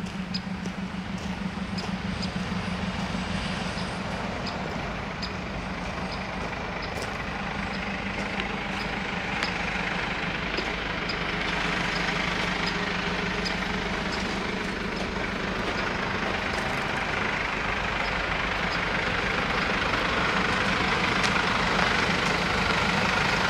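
Mercedes Sprinter van's engine idling steadily, with faint high ticks about once a second and a hiss that grows louder in the second half.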